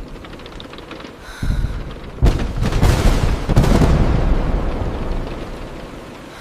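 A thunderclap over steady rain: a low rumble builds about a second and a half in, then breaks into a sharp crack with a few following cracks and rolls away, fading over the next few seconds.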